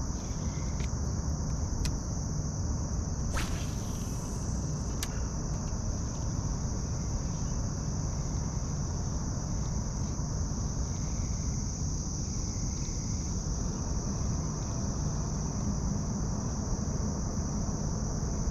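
Steady high-pitched chirring of insects, crickets or similar, over a low steady rumble, with a few faint clicks and a short swish about three seconds in.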